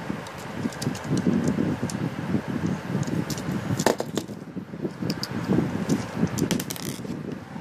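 Lego pieces clicking and rattling as small plastic bricks are handled and pressed onto a Lego car: scattered sharp clicks, the loudest about four seconds in and a quick run of them near the end, over low continuous background noise.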